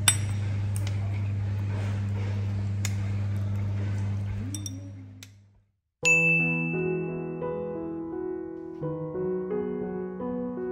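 A fork clinking on a china plate over a steady low hum, with one sharp clink at the start; the sound fades out about five seconds in. After a moment of silence, soft piano music with slow, changing chords begins.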